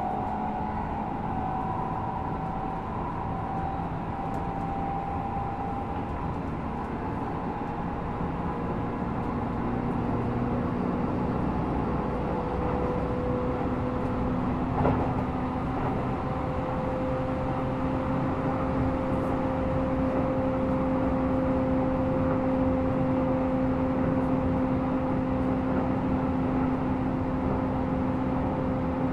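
Hokuso 7500 series electric commuter train running, heard from inside the car: a steady rumble carrying two held tones. The lower tone steps up in pitch about twelve seconds in, a single knock comes a few seconds later, and the noise grows slightly louder in the second half.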